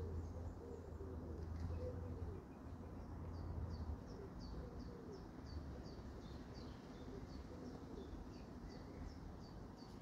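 Pigeon cooing in repeated low phrases, while a small songbird repeats a short high call about twice a second. A low steady hum runs under the first few seconds.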